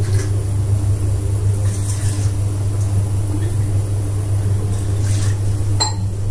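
Steady low mechanical hum, like a motor or appliance running, with a single click near the end.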